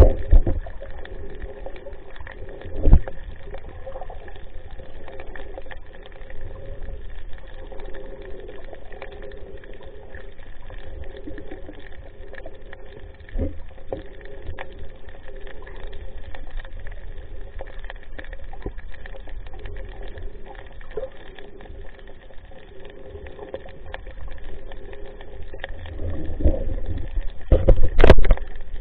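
Muffled water movement with a steady hum underneath. Loud knocks come about three seconds in and again near the end.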